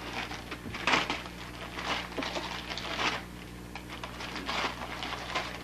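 Gift wrapping paper rustling, crinkling and tearing in irregular bursts as two dogs paw, nose and pull at wrapped presents.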